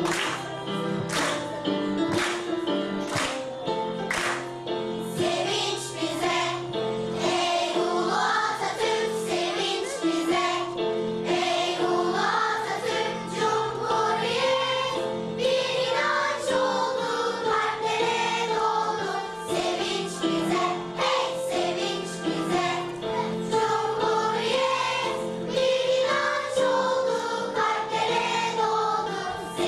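School choir singing with instrumental accompaniment and a steady beat.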